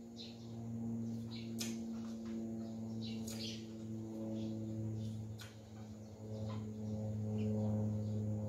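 A person chewing crunchy stir-fried vegetables, with scattered short sharp clicks and crackles. Under it runs a low steady hum of held tones that changes pitch about halfway through.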